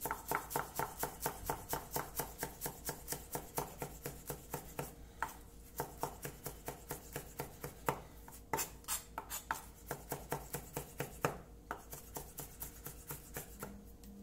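Chef's knife chopping fresh cilantro on a wooden cutting board: a quick, even run of knocks, about four or five a second, with brief pauses.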